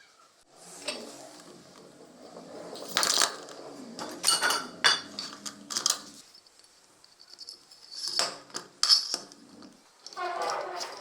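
Hard metal or glass parts clinking and knocking as they are handled, with about half a dozen sharp knocks spread out and rubbing or scraping between them.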